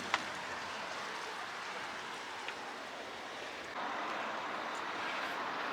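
Steady outdoor background noise, with one sharp click just after the start and a slight step up in level about two-thirds of the way through.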